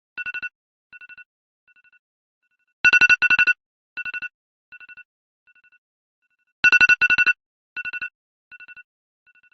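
iPhone alarm sounding: loud clusters of rapid, high-pitched electronic beeps, each cluster fading away in quieter repeats like an echo, the pattern starting over about every four seconds.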